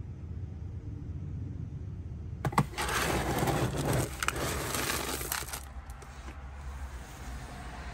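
A scoop digs into a bin of dry cat kibble and lifts it out, the pellets rattling and clattering for about three seconds, starting a couple of seconds in. Before that there is only a low steady rumble.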